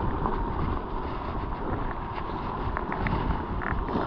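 Wind buffeting the microphone of a chest-mounted GoPro in a cut-open case, a steady low rumble, mixed with a mountain bike rolling over the trail and a few light rattles and clicks from the bike.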